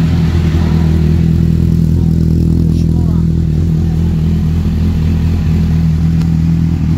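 Honda CBR1000RR's inline four-cylinder engine idling steadily through a Yoshimura exhaust, at an even pitch and level, running again after its repair.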